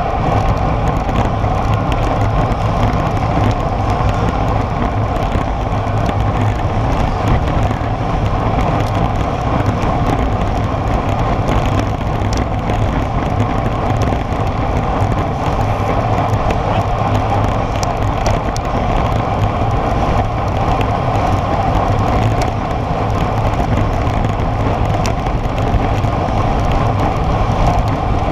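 Steady rush of wind buffeting a road bike's camera microphone at about 45 km/h, mixed with the hum of tyres rolling on asphalt.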